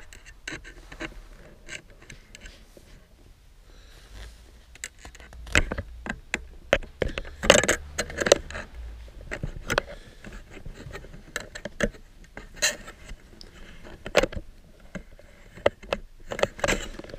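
A steel bicycle spoke and an umbrella rib scraping and clicking against each other as they are handled and fitted together, with the nylon canopy rustling under the hands. The noises come in irregular bursts, busiest about halfway through.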